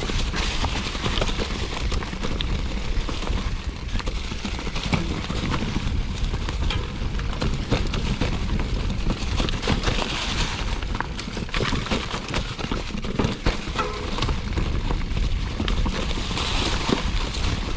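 Mountain bike rolling over a rough, rocky trail: tyres crunching and the bike rattling with many sharp clicks, over a steady low rumble.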